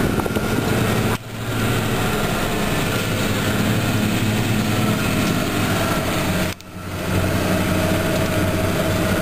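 Trail groomer's engine running steadily under load as the machine travels, heard from inside the cab. The sound cuts out briefly twice, about a second in and again about six and a half seconds in.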